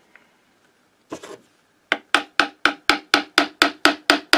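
A pointed hand tool scratching reference marks into the metal of a moped engine's clutch: one short scrape about a second in, then a rapid, even run of sharp scraping strokes, about four a second, from about two seconds in.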